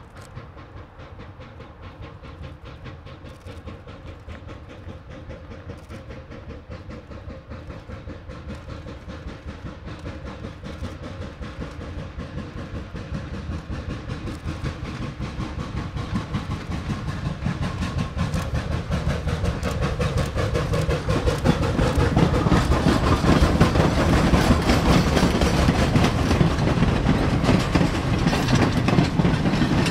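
Replica 4-4-0 steam locomotive approaching under steam with a rapid, steady chuffing exhaust, growing steadily louder, then passing close by. Its passenger coaches roll past with a clickety-clack of wheels on the rails.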